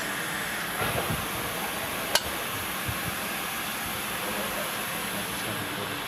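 Saw-blade top and face grinding machine running with a steady hiss. A single sharp click about two seconds in.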